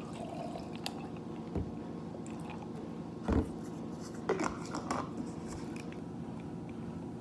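Cold brew coffee poured from a bottle over ice in a glass mason-jar mug, with the ice crackling and a few knocks as the bottle and jar are handled on the counter, the loudest about three seconds in. A steady low hum runs underneath.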